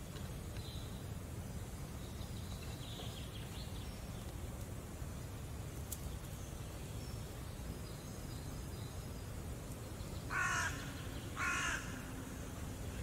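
Two loud bird calls about a second apart near the end, each short and harsh, over a steady low background rumble of open air.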